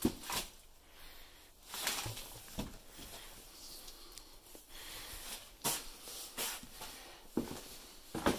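Irregular footsteps scuffing and crunching over a debris-strewn basement floor, with scattered short rustles and knocks.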